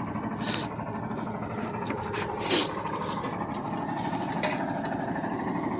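Boat engine running steadily, with a few short knocks over it.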